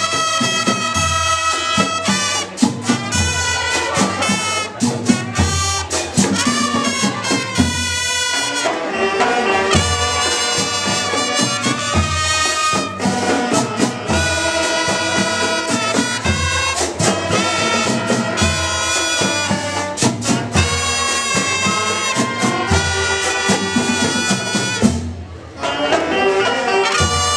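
Marching band (banda de paz) playing live: a brass melody of trumpets and trombones over a steady drum beat, breaking off briefly near the end.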